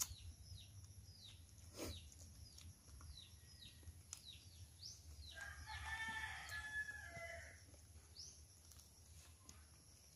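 A rooster crows once, a long wavering call starting about five seconds in, over a small bird's repeated short falling chirps, about two a second.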